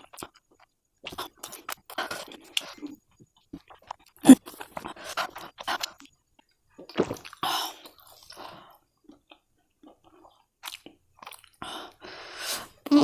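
Close-up chewing of spicy instant noodles, in irregular short bursts with pauses, with one sharper, louder sound about four seconds in.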